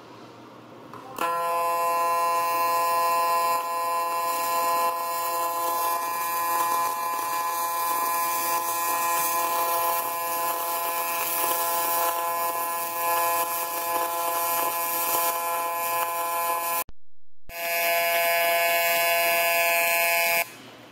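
AC TIG welding arc on aluminum from a Miller Dynasty inverter welder, buzzing steadily at a fixed pitch. It starts about a second in, breaks off for a moment near the end, then buzzes again with a brighter, higher tone until it stops just before the end.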